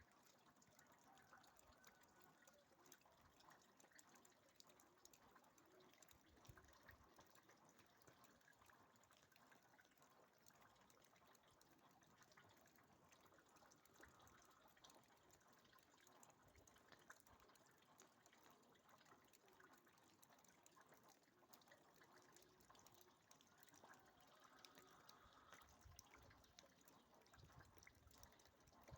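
Near silence: a faint steady background hiss.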